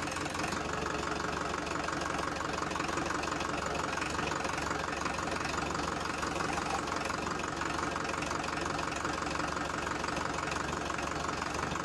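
Mini tractor's engine running steadily, with an even knocking chug.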